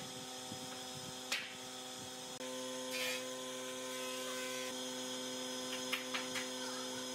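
A steady electrical hum with a few brief light clicks and knocks as metal clamps are handled on a glued-up strip-laminated wooden chair leg. The hum steps up slightly about two and a half seconds in.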